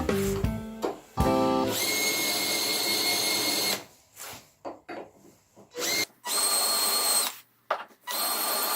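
Electric drill running in short bursts, switched on and off several times, with a steady high whine over its noise.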